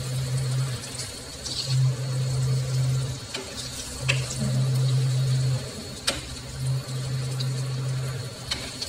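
Chicken pieces simmering in broth in a nonstick pan while a spatula stirs them, with a few sharp taps and scrapes of the spatula against the pan. A low hum comes and goes several times.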